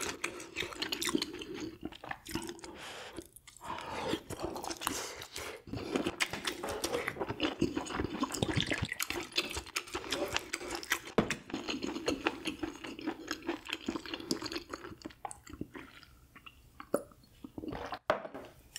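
A person chewing and eating food close to the microphone: a dense, irregular run of small mouth clicks and bites, easing briefly about three and a half seconds in and again near the end.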